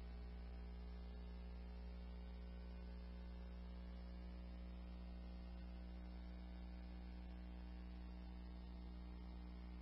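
Steady, faint electrical hum with a stack of evenly spaced overtones, the background noise of a dispatch radio recording between transmissions.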